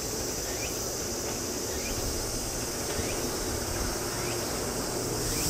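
Steady high-pitched summer insect chorus, with short rising chirps about once a second. Underneath is a faint low rumble from the distant electric train approaching slowly.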